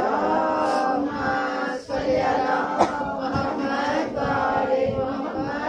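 Congregation chanting the salawat together in unison, answering the call to send blessings on the Prophet and his family, with a short break about two seconds in.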